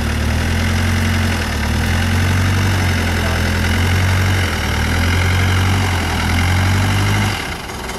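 Off-road trial truck's engine pulling hard under load as the truck climbs over a fallen tree trunk, its pitch stepping up and down with the throttle, then easing off near the end.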